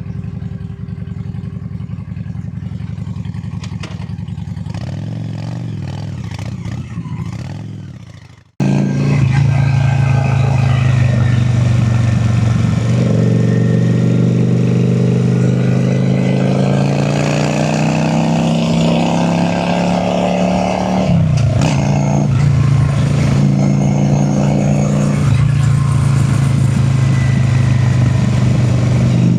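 Honda Shadow V-twin cruiser motorcycle engine running steadily, then fading out. After a sudden cut it is louder, its pitch rising steadily for several seconds as it accelerates, then dropping suddenly about two-thirds of the way in and holding steady.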